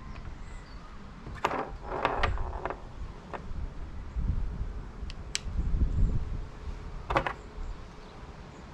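Bicycle headset parts and tools clinking and knocking during reassembly: a cluster of metallic clicks about a second and a half in, single ticks later, and another short clatter near the end, over low handling rumble.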